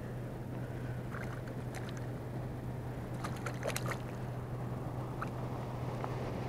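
A steady low hum runs throughout, with a few faint short clicks and rustles scattered through it.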